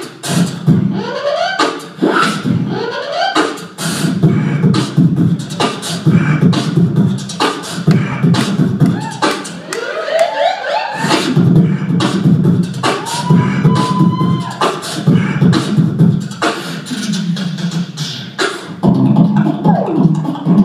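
Solo beatboxing into a handheld microphone: sharp drum-like hits over a steady low bass tone, with quick rising vocal sweeps near the start. The bass drops out for about a second near the middle, and a single high note is held for over a second a little later.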